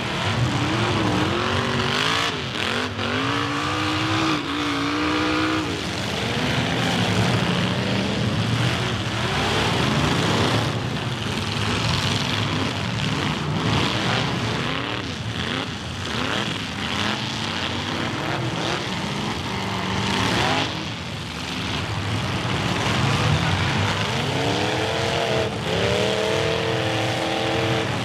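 Several demolition derby cars' engines revving hard, their pitch rising and falling as they are floored and let off, with a few sudden crashes of car bodies slamming into each other.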